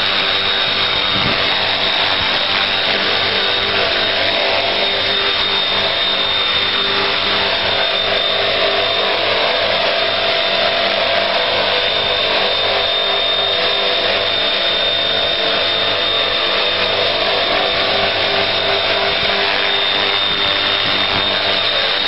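Electric RC model helicopter (Bell UH-1 Huey) running steadily: the motor's high whine over the spinning rotor.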